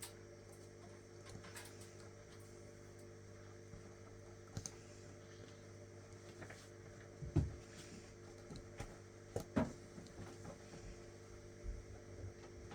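Faint, scattered clicks and taps of a latch hook tool working yarn knots through rug canvas, over a steady low hum. A dull thump about seven seconds in is the loudest sound.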